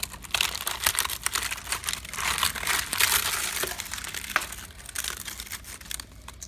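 Termites chewing and moving inside wood: a dense, irregular crackling of many tiny clicks, like crinkling paper, the sign of an active termite infestation.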